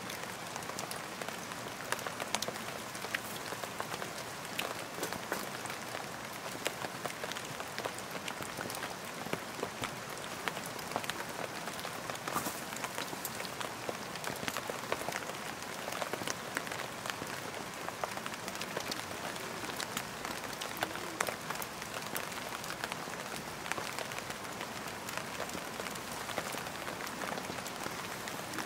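Steady rain falling on the tent overhead, heard from inside: a continuous hiss dotted with many small, sharp drop ticks.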